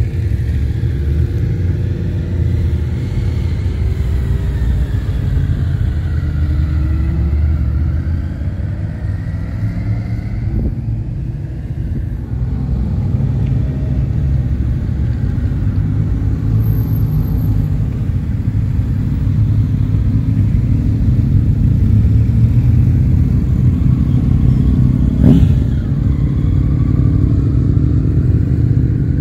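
Motorcycles riding past one after another and pulling away, their engine notes rising and falling in pitch as they accelerate and change gear, over a steady rumble of other passing road traffic. A single sharp click sounds near the end.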